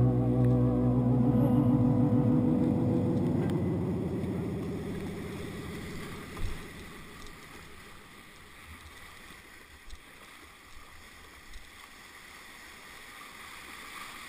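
Background music fading out over the first few seconds, giving way to the steady rush of river water around a kayak, with a few short thumps.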